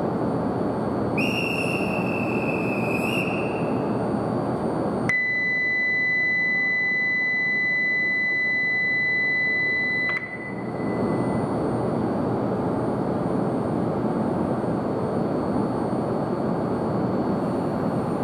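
A platform whistle blast lasting about two seconds, then a station departure buzzer: a steady, high, pure electronic tone for about five seconds that cuts off abruptly. Both sound over the steady noise of a Shinkansen train standing at the platform.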